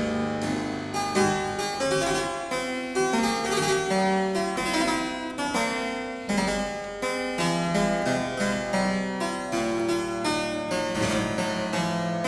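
Harpsichord music: a steady stream of bright, quickly plucked notes and chords.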